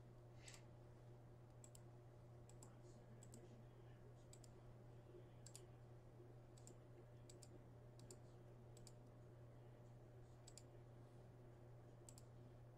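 Near silence with faint, irregular clicks of a computer keyboard and mouse, about a dozen, over a steady low hum.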